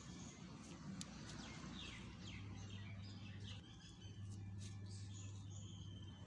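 Small birds chirping, with quick downward-sliding chirps and a thin held whistle near the end, over a steady low hum.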